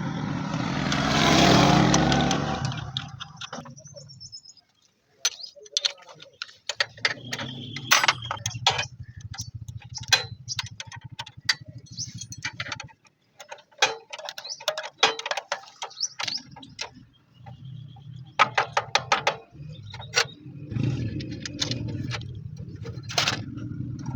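Many sharp clicks and knocks, some in quick runs, over a low hum that drops out and returns several times.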